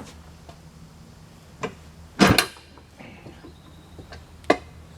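Metal knocks and clanks from working a tire bead onto a steel rim with an old manual tire-mounting tool: a few separate strikes, the loudest a double clank a little past two seconds in and a sharp one near the end.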